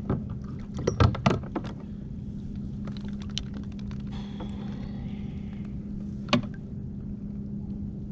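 Fishing gear handled in a kayak: a cluster of sharp clicks and knocks about a second in, and one more knock past six seconds, over a steady low hum.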